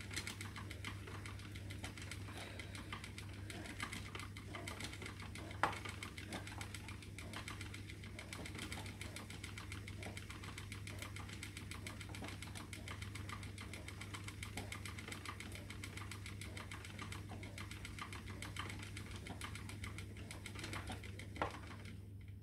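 Spinning wheel running steadily while plying yarn: a fast, even mechanical clicking, with a louder click about five and a half seconds in. The wheel stops just before the end.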